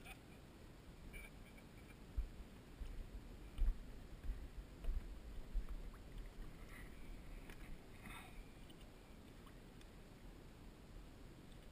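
Faint water sloshing and splashing as a channel catfish is held in pond water and let go, with a short splash about eight seconds in. Low rumbling bumps come a few seconds in.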